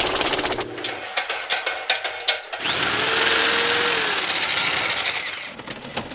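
A rapid run of industrial and workplace machine sounds cut one after another: a fast mechanical clatter of repeated clicks, then about three seconds of a loud steady hissing machine noise, then clicking again.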